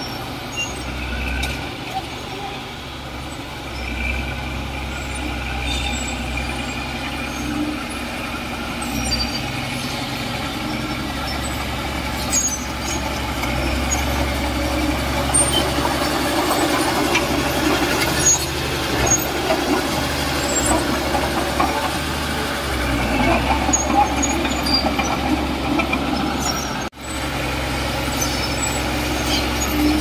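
Heavy diesel construction machinery running steadily, a bulldozer or dump truck engine, with occasional short clanks. The sound cuts out for an instant near the end.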